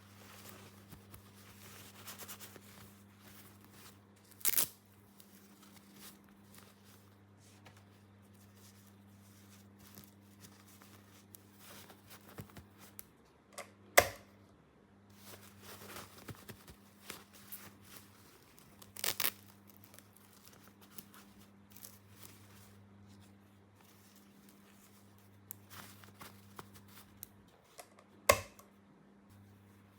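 Small plastic toy pieces and packaging being handled: soft rustling and light tapping, broken by four sharper clicks or knocks spread through, over a faint steady low hum.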